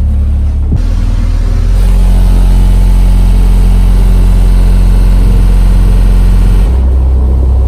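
Bass-heavy music played very loud through a subwoofer in a carpeted box, the cone moving hard. Its deep bass notes shift about a second in, again near two seconds, and near the end. The sub is being driven harder than it can really handle.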